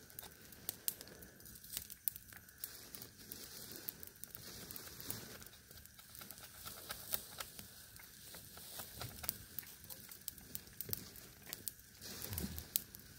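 Wood campfire burning, crackling with many irregular sharp pops.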